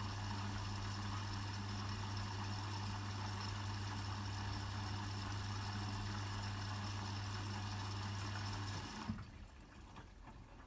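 Hotpoint WMFUG 942 washing machine topping up with water: the inlet valve hums steadily as water runs into the drum, and the fill cuts off abruptly about nine seconds in, leaving a few faint ticks.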